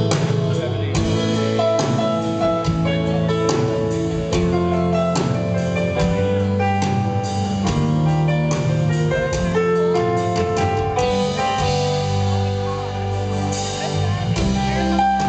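Live band music with an electric guitar lead, sustained melodic notes over a steady accompaniment.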